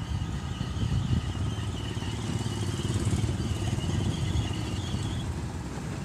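Mitsubishi BD2G crawler bulldozer's diesel engine running steadily at a distance, a continuous low rumble.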